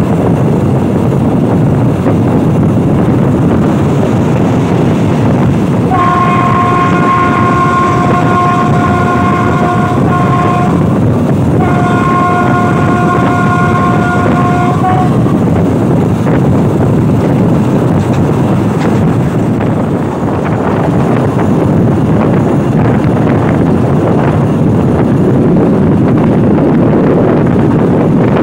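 Passenger train running, with a steady rumble and wind rushing past the open carriage window. About six seconds in, the locomotive's horn sounds two long blasts, each several seconds, with a short gap between.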